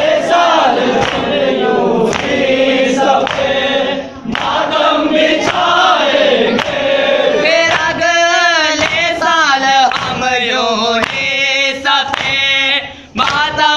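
A group of men's voices chanting a noha, a Shia mourning lament, together in unison, in long melodic phrases that rise and fall.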